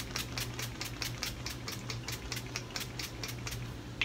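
Mario Badescu facial mist pump-spray bottle spritzed at the face in a quick run of short hissing squirts, about five a second, stopping shortly before the end.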